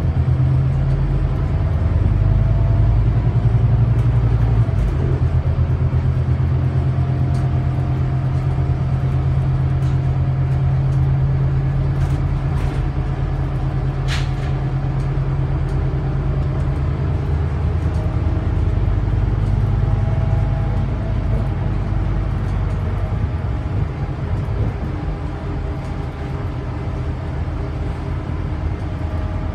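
Scania DC9 five-cylinder diesel engine of a city bus running steadily as the bus drives along, heard from inside the passenger cabin, with road noise. A single sharp tick about halfway through.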